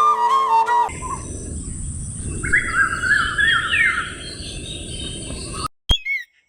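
Flute music for about the first second, then birds calling: a quick series of repeated rising-and-falling notes, over a steady high hiss and low outdoor background noise. A sharp click near the end, followed by a few short chirps.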